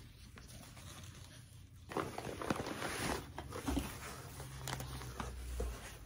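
Rustling and crinkling of paper and plastic packing being handled as a shipped plant is lifted out of a cardboard box, starting about two seconds in with scattered small crackles and clicks.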